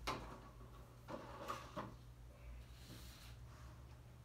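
A few faint taps and light knocks of kitchen utensils and bowls being handled on a table, over a low steady hum.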